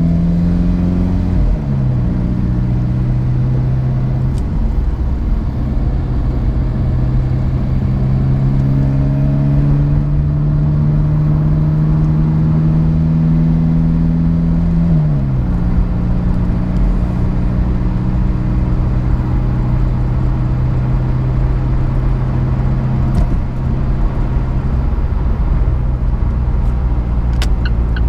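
Alfa Romeo 4C's turbocharged four-cylinder engine pulling on the road, its note climbing slowly and then dropping sharply twice, about a second and a half in and about halfway through, as the dual-clutch gearbox upshifts in automatic mode under its newly fitted transmission control unit.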